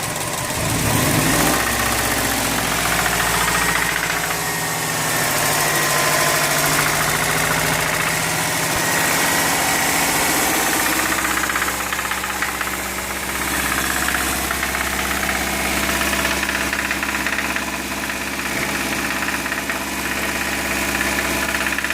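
Subaru WRX flat-four engine running at raised revs with a clacking knock. The noise shows only above about 2000 rpm, in neutral or in gear, and the owner suspects something in the clutch has gone.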